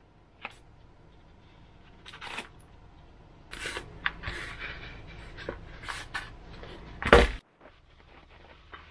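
Handling noise of an EPP foam model-plane fuselage and tailplane being turned and gripped in the hands: scattered clicks, then rubbing and scraping with small squeaks and ticks, and one sharp knock a little after seven seconds, the loudest sound.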